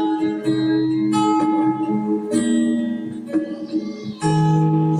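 Acoustic guitar strumming sustained chords, changing chord about once a second, in an instrumental break between the sung lines of a Tagalog worship song.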